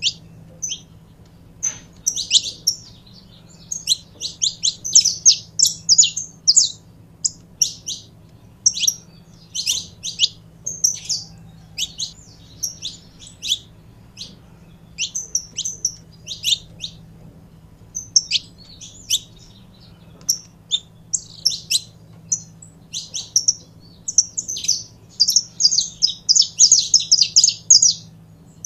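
Saffron finch singing: phrases of short, sharp, high chirps with brief pauses between them, running into a fast unbroken string of notes near the end.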